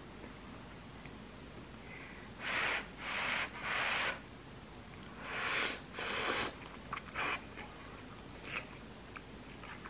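Spicy instant ramen noodles being slurped: five loud, hissy slurps of about half a second each, three in a row and then two, followed by a few short sharp clicks.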